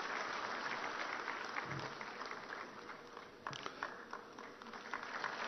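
Faint audience applause, a patter of many hands clapping, thinning out after about three seconds into scattered claps.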